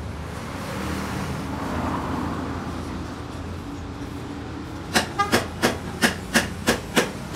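Liquid pouring from a plastic jerrycan into a crate of lead-acid battery plates, over a steady low hum. Near the end comes a quick run of about eight sharp clacks.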